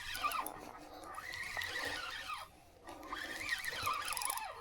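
Fishing reel squealing and whirring in two stretches, its pitch rising and falling, as a hooked rainbow trout is played on the rod, with a short pause about two and a half seconds in.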